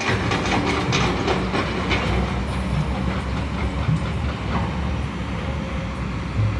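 Heavy construction machinery running with a steady low rumble and repeated metallic clanking, the clanks thickest in the first two seconds.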